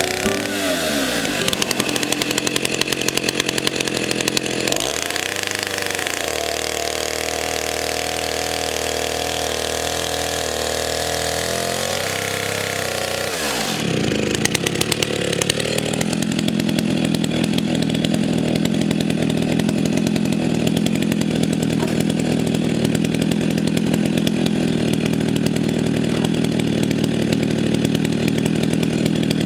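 Vintage STIHL 08S two-stroke chainsaw running: its engine speed drops early on, then rises and holds high for several seconds. About halfway through it falls away and settles into a steady, lower-speed run.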